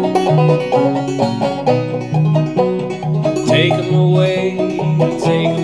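Clawhammer banjo in double C tuning picking an old-time melody, backed by a 1930s Abbott archtop acoustic guitar keeping a steady, even bass-note rhythm.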